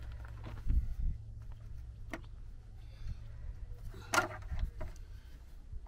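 Plastic clicks and a clatter from a KWT particle separator's housing as its release buttons are pressed and it is worked loose: a sharp click about two seconds in and a louder clatter about four seconds in, over a low steady rumble.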